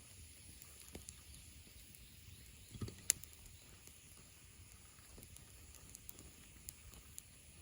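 Wood campfire burning quietly, crackling with a few sharp pops, the loudest about three seconds in.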